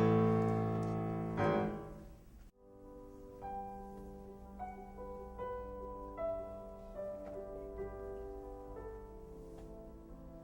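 Solo piano: a loud held chord fades away over the first two seconds, then after a brief break soft single notes and quiet chords follow at an unhurried pace.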